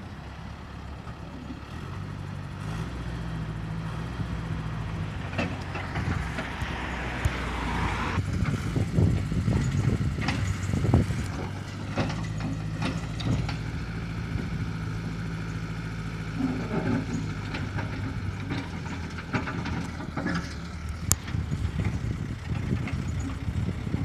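Old ZTS DH-112 excavator's diesel engine running, its pitch shifting as it works, with a hiss a few seconds in and repeated metal clanks and knocks from the machine.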